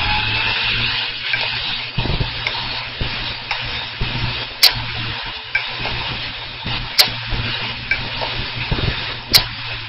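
Hard disk drive with damaged read/write heads, clicking slowly over a steady hiss and low hum. Fainter ticks come first, then three sharp, loud clicks from about halfway, a little over two seconds apart. Slow clicking is a sign of head damage.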